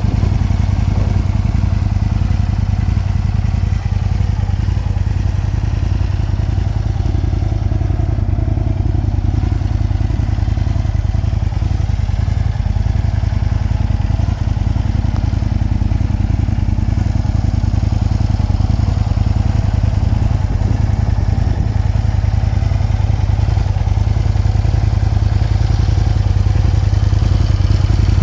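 Aprilia Tuono 1000R's 998 cc V-twin engine idling steadily.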